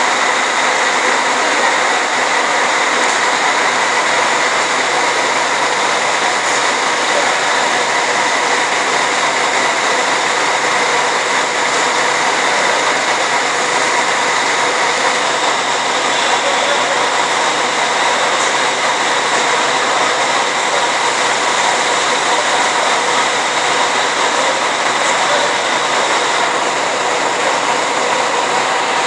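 Engines running at a steady speed: a loud, even rush of noise with a constant high whine and its overtones, unchanging throughout.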